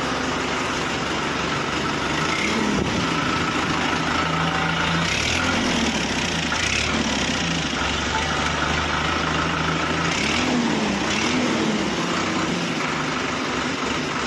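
Sonalika tractor's diesel engine idling steadily through its original factory-fitted silencer, the pitch briefly rising and falling a few times.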